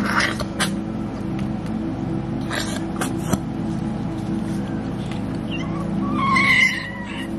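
A newborn puppy gives a short, high squealing cry about six seconds in, over a steady low hum. It is preceded by a few short rustling noises.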